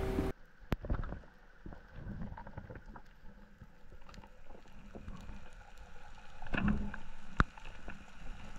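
Faint muffled underwater sound picked up by a diving camera: a low water rumble with many small scattered clicks and crackles, and two sharper clicks, one near the start and one about seven seconds in.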